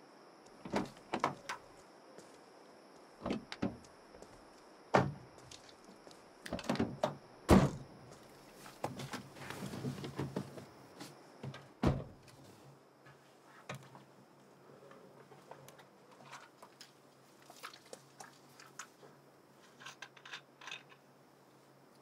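Car doors of a Kia hatchback being opened and shut as people climb in: a string of knocks and clatters, with two heavy door thuds about seven and a half and twelve seconds in. After that, only faint clicks and rustling from inside the car.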